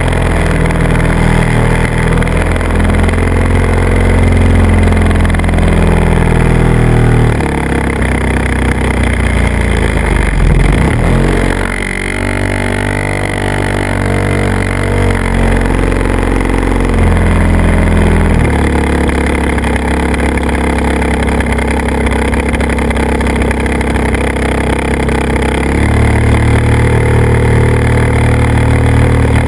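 The motor and propeller of a radio-controlled airplane, heard from the camera on board: a steady pitched drone that jumps between pitches as the throttle is changed. Around the middle the pitch dips and then rises again.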